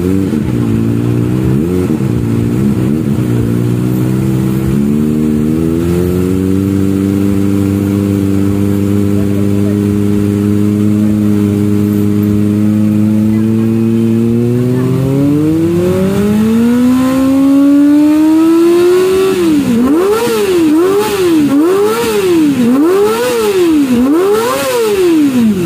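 Kawasaki ZX-25R's 250 cc inline-four running through a custom slip-on header and Akrapovic carbon silencer. After a few small throttle blips it settles to a steady raised speed for about ten seconds, then climbs smoothly in pitch. Near the end it is revved up and down quickly five times.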